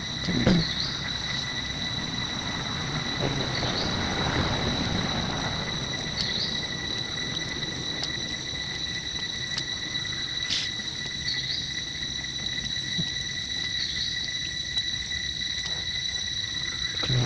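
Insects droning steadily in one unbroken high tone, with short high chirps every few seconds and a brief louder sound just after the start.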